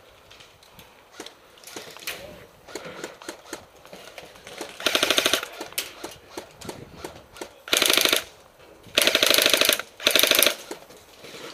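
Airsoft electric rifle firing on full auto in four short rattling bursts, the last two close together. Before them come scattered single pops of more distant airsoft fire.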